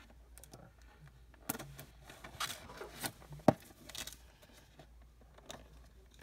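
Hobby knife slicing the tape seal on a cardboard toy box: faint scraping cuts and light handling of the packaging, with one sharp click about three and a half seconds in.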